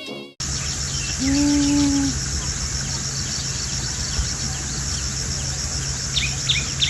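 Steady high-pitched insect chorus with a fast, even pulsing, joined near the end by a few quick falling bird chirps. A short held low tone sounds briefly about a second in.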